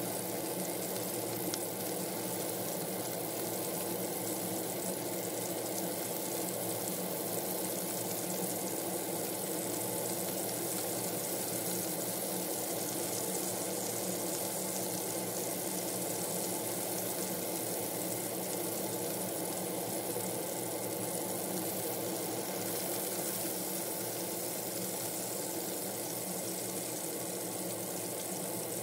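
Prawns frying in hot oil in a wok: a steady sizzle over a constant hum, with no change in level.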